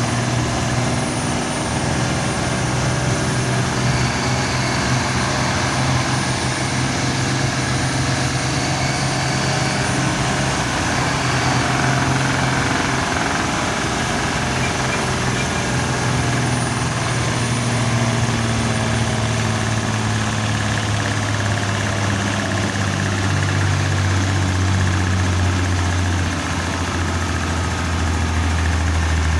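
Turbocharged diesel bus engine running, with a faint high turbo whistle over its steady note. The engine note drops lower about three seconds before the end.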